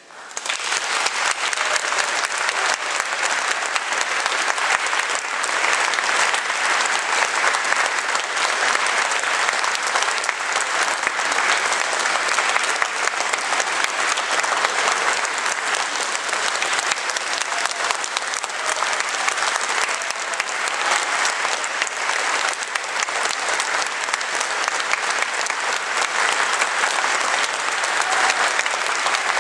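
Audience applauding steadily, breaking out suddenly as the choir's singing ends.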